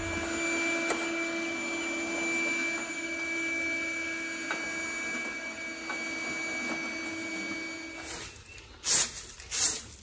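Small portable vacuum with a hose running steadily with a whine, sucking debris from the base of a heat pump's condenser coil; it stops about eight seconds in, and two loud short noises follow near the end.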